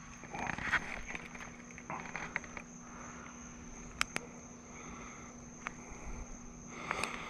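Steady high-pitched insect drone over a pond, with rustling and a few sharp clicks, the sharpest about four seconds in, as a small bass is held and the fly worked out of its mouth.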